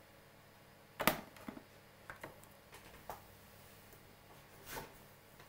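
Handling noises on a desk: one sharp knock about a second in, which fits the gaming mouse being set down, then a few fainter clicks and taps, and a softer brief scrape near the end.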